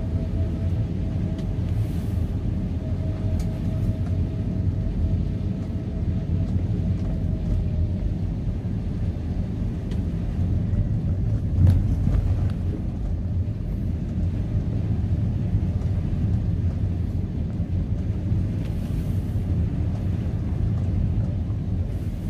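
Car cabin noise while driving on a wet road: a steady low rumble of engine and tyres, with one short knock about twelve seconds in.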